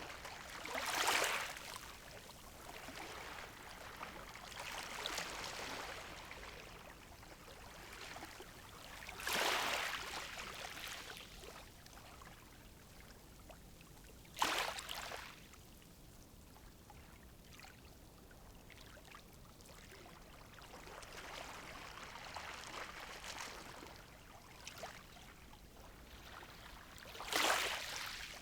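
Calm sea waves washing onto a shore. Four louder waves break at irregular gaps of several seconds, one of them with a sharp slap, and softer washes swell and fade between them.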